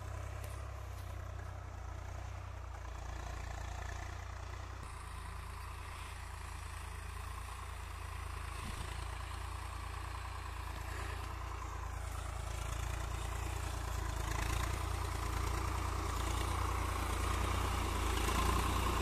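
Swaraj 855 FE tractor's three-cylinder diesel engine running steadily as it pulls a cultivator through the soil, growing louder over the last few seconds as the tractor comes close.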